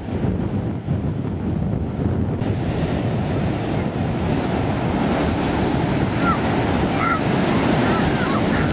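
Ocean surf breaking on the beach, with wind buffeting the microphone throughout.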